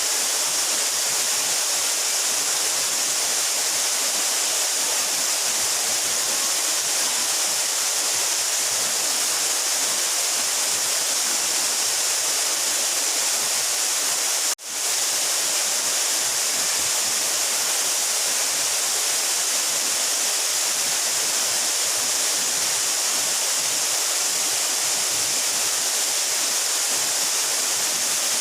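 Water of a 12-metre mountain waterfall falling steadily as an even rushing hiss. The sound cuts out for a split second about halfway through, then returns.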